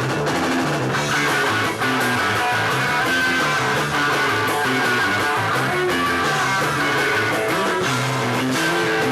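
Live new wave rock band playing an instrumental passage: electric guitar, bass guitar and drums.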